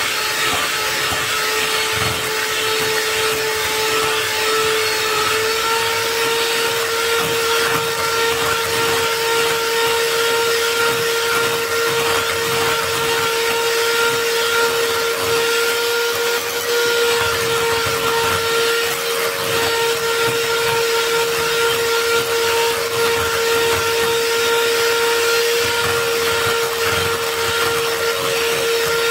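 Electric hand mixer running steadily, its beaters whipping a cream-and-whipping-cream mixture in a glass bowl until it thickens. A constant motor whine whose pitch steps up slightly about five seconds in.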